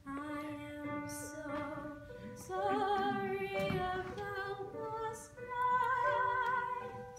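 Solo female voice singing a musical-theatre song, long held notes with vibrato, loudest about six seconds in.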